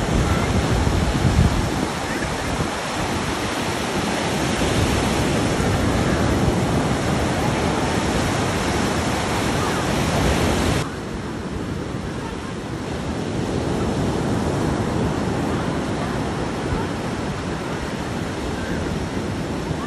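North Sea surf breaking and washing in over a sandy shore, with wind rumbling on the microphone. About eleven seconds in, the sound drops suddenly and turns duller.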